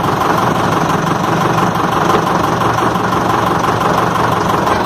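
Bus engine idling steadily.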